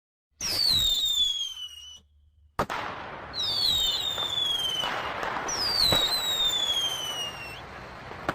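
Fireworks going off: three whistles that each fall in pitch, over steady crackling. There are sharp bangs about two and a half seconds in and again near six seconds. It starts after a brief silence.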